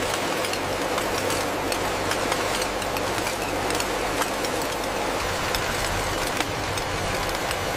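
Steady factory machinery noise: a constant hum and hiss with many scattered light clicks.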